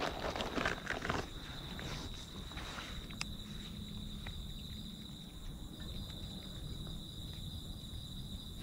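A night insect trilling steadily on one high note. In the first second or so there are short crunching and rustling noises from cats eating dry cat food.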